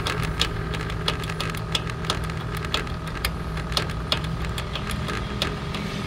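SL1500ACL sliding gate opener's motor humming steadily as it drives the gate at a very slow crawl, with sharp clicks from the chain drive about twice a second. The owner takes the slow speed for a hot motor.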